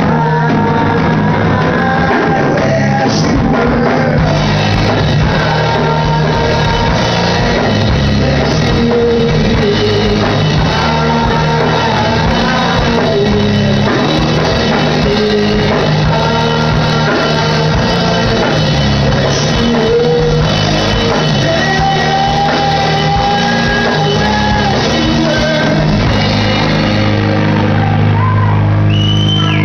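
Three-piece rock band playing live: a singer over electric guitar, bass and drums.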